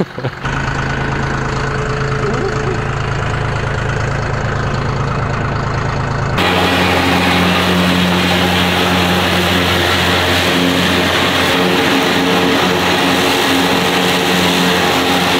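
Green John Deere tractor's engine running steadily. About six seconds in the sound changes abruptly to the tractor mowing tall grass with a Bush Hog rotary cutter, a louder, fuller steady drone.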